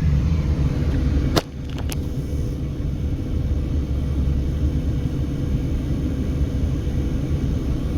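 Low, steady rumble of a car driving slowly, heard from inside the cabin: engine and tyre noise. A single sharp click comes about a second and a half in, and the rumble dips briefly after it.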